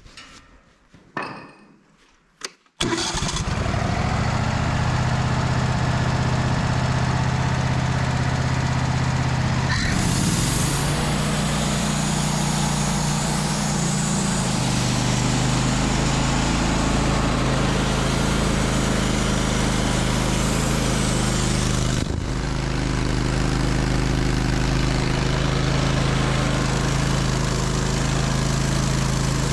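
A portable sawmill's engine starts about three seconds in and then runs steadily and loudly, its tone shifting once about ten seconds in.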